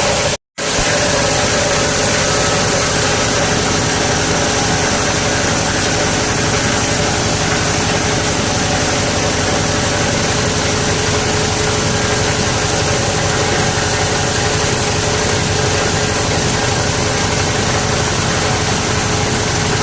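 Plastic crusher machine running with a loud, steady mechanical noise and a constant hum. It cuts out completely for a moment about half a second in, then carries on unchanged.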